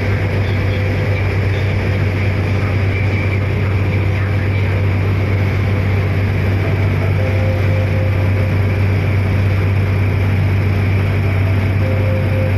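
A river car ferry's engine running steadily under way, a constant low drone heard from on board.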